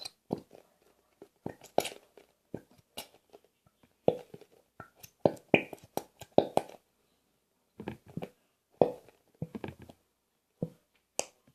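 Irregular clicks and crinkles of a plastic glue bottle being squeezed and handled over a plastic pot while glue is poured out.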